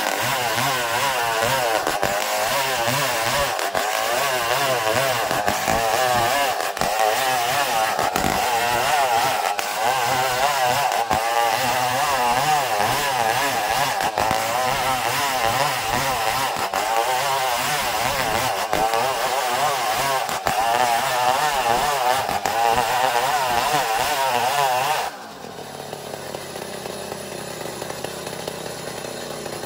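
Chainsaw ripping planks lengthwise from an ulin (Bornean ironwood) log, its engine running under load with a steadily wavering pitch. About 25 seconds in, the sound drops abruptly to a much quieter level.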